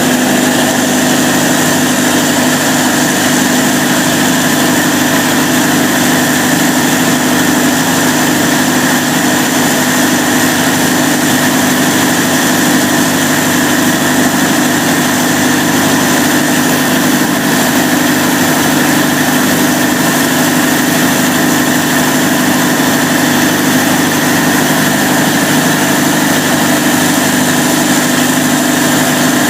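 Cummins KTA38-G4 V12 diesel generator set running at a steady speed, loud and unchanging, with a strong steady hum.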